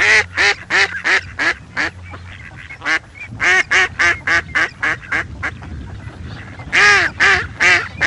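Duck quacking in quick runs of short calls, about three or four a second. The calling breaks off briefly in the middle, and the run ends with three louder quacks.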